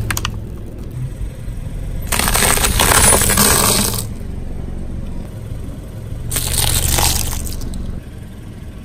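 A car tyre rolling over and crushing objects on concrete: a loud crunching, crackling burst about two seconds in lasting nearly two seconds, and a shorter one around seven seconds, over the steady low hum of the car's engine.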